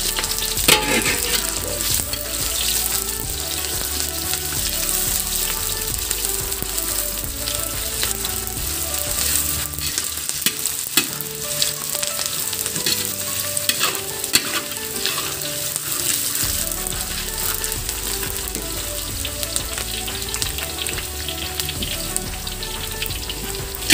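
Sliced shallots, garlic and onion sizzling in hot oil in a metal wok, with a spatula scraping and stirring them in frequent clicks.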